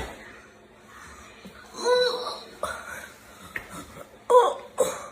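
A person laughing in short bursts: once about two seconds in, and twice in quick succession near the end.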